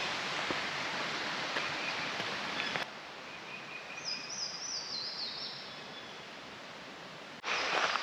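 Outdoor ambience after rain: a steady rushing hiss, with a songbird singing a short run of about five high notes about four seconds in. Near the end, footsteps on the trail start up.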